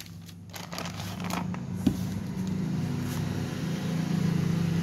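A steady low engine hum, slowly growing louder, with a few light clicks and a knock in the first two seconds.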